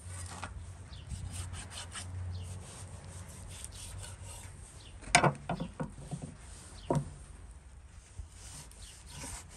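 Large kitchen knife sawing through raw lamb ribs on a wooden cutting board, with a rasping stroke-by-stroke scrape. The blade knocks sharply against the board about five seconds in, with a few lighter knocks after it, and once more about seven seconds in.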